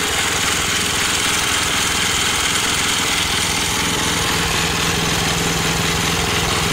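Single-cylinder Briggs & Stratton 206 cc 5 HP engine of an old CastelMAC garden tiller, running steadily.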